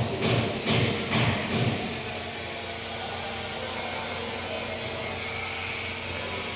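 Steady whirring hum of an electric motor running, after a pulsing low thumping in the first two seconds.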